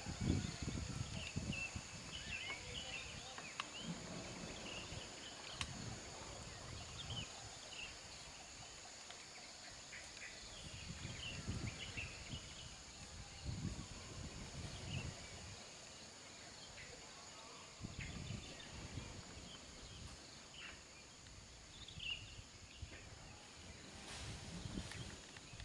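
Faint outdoor ambience of scattered small-bird chirps over a steady high hiss, with low rumbling swells that rise and fade every few seconds.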